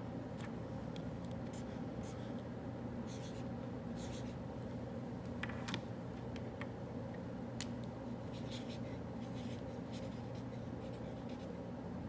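Pen or pencil writing on paper in short, irregular scratching strokes, over a steady low room hum.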